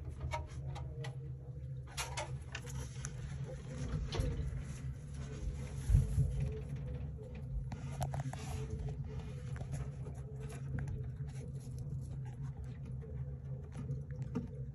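Light pattering and rustling of a rat moving over loose enclosure substrate, over a steady low hum, with one dull bump about six seconds in.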